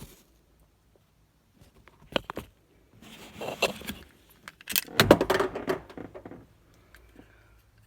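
Clicks, scrapes and rattles of a Phillips screwdriver and small screws working on a plastic door-lock bezel, with the loudest flurry of clattering about five seconds in.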